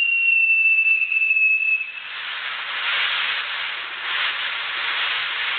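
A whistling firework shrieks on one high note that sinks slowly in pitch and cuts off about two seconds in. A dense crackling hiss of burning fireworks follows.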